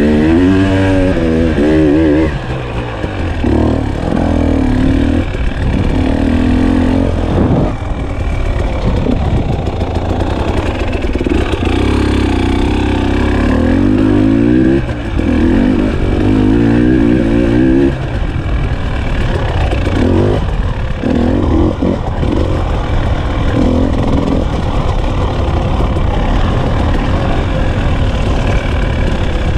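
KTM 300 XC-W TPI's fuel-injected single-cylinder two-stroke engine being ridden, its revs rising and falling over and over with the throttle, with brief drops where the throttle is shut.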